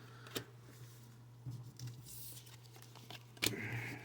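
Faint handling noises of trading cards and foil booster packs: light rustling with two short clicks, about half a second in and near the end, over a steady low hum.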